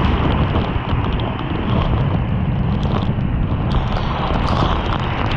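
Sgwd yr Eira waterfall in heavy flood, heard from behind the falling water: a loud, steady, deep rush of pouring water, with a few small ticks on top.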